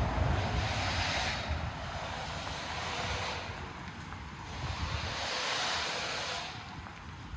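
Street traffic: vehicles passing close by, a low engine rumble fading at the start, then tyre hiss swelling and dying away twice.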